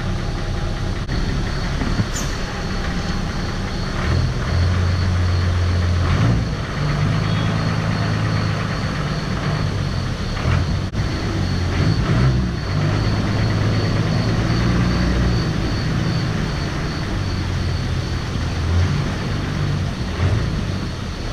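Vehicle engine running under load as it drives through a river ford, its note rising and falling as it works through the water.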